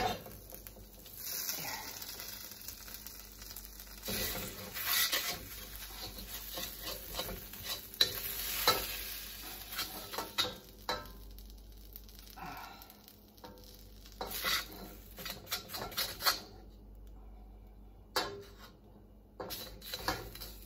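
Metal wok spatula scraping and clinking against an uncoated steel wok as fried rice noodles are scooped out. A light sizzle comes from the still-hot pan and stops near the end, leaving scattered clinks.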